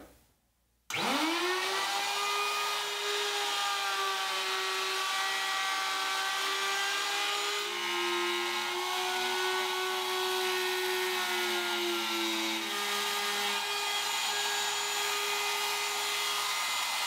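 A router starts up about a second in, its whine rising to speed, then runs steadily. Its pitch drops for about five seconds in the middle while the straight bit cuts a shallow hinge mortise into the wooden door jamb, then comes back up as the cut ends.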